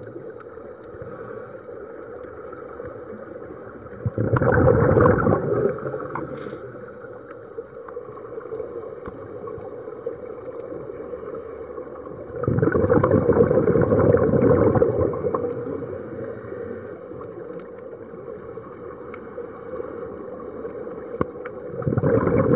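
Underwater recording of scuba divers' exhaled bubbles gurgling from their regulators in three loud bursts of two to three seconds each, about four, twelve and twenty-two seconds in, over a steady low underwater hiss.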